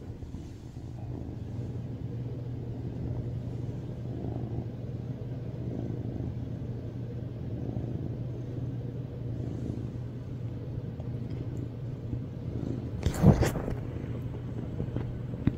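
Tuxedo cat purring, a steady low purr that swells every second or two. A short loud noise cuts in near the end.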